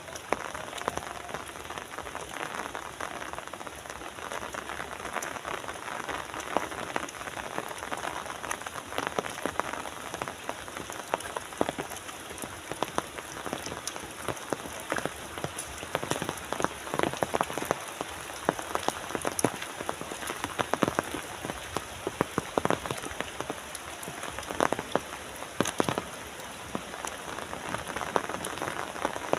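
Steady rain falling, with many sharp, separate drop impacts close by over a continuous hiss.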